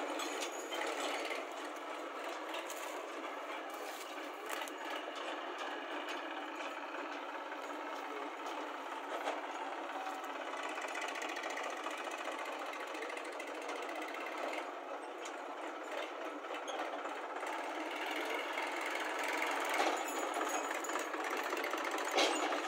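Diesel engines of a Massey Ferguson 7250 DI tractor and a JCB backhoe loader running steadily, with a slight rise in level near the end.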